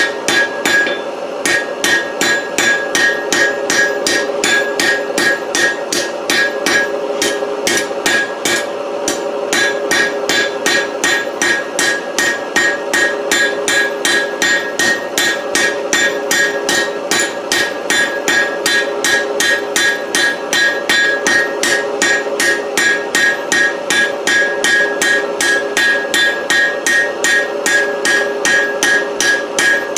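Hand hammer striking hot steel bar stock on an anvil in a rapid, even rhythm, with a steady ring from the anvil. It is the smith rounding the eight-faceted taper of a 4140 steel punch into a smooth round point.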